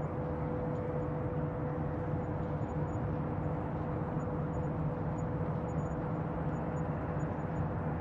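Bayside ambience: a steady low mechanical rumble with a constant hum over a soft noise bed.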